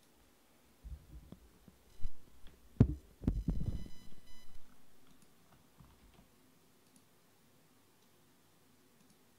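A run of dull thumps and knocks from things being handled on a desk, loudest in the middle, with a faint buzzy beep sounding briefly alongside them.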